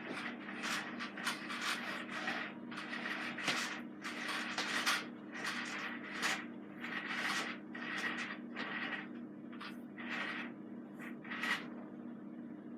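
Bissell PowerLifter Swivel Rewind Pet upright vacuum cleaner running with a steady motor hum while being pushed back and forth over the floor. Each stroke brings a short rush of suction and brush noise, about one to two a second.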